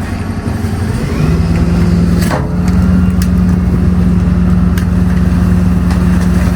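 Refuse truck's diesel engine stepping up from idle to a steady higher speed about a second in, as the bin body's hydraulics start the compaction cycle, with a single clunk about two seconds in.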